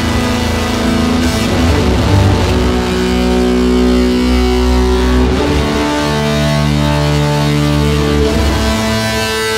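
Catwalk show music: long held chords over a deep, heavy bass, the chord shifting every second or two.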